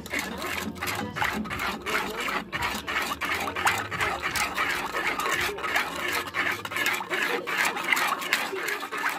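Spoon stirring a pot of thin gravy, scraping quickly around the pot's bottom and sides in a rapid run of scrapes and light clicks.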